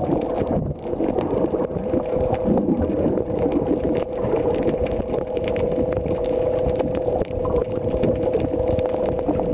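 Steady drone of an idling boat engine heard underwater, over a rumble of water noise with scattered clicks.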